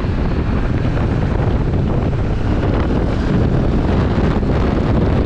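Steady wind noise on the microphone of a motorcycle riding at about 60 km/h, with the Benelli TRK 702's parallel-twin engine running underneath.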